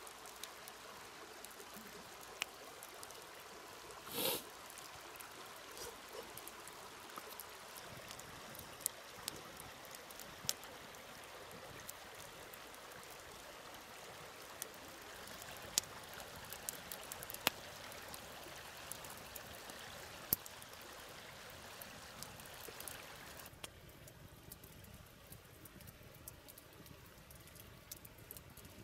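Steady rush of a flowing river with scattered sharp crackles from a wood campfire. There is a brief louder rustle about four seconds in, and the hiss drops a little near the end.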